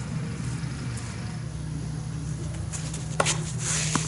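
A tennis ball struck by a racket with a sharp pop about three seconds in, followed by a short scuffing hiss of shoes sliding on the clay court surface, over a steady low hum.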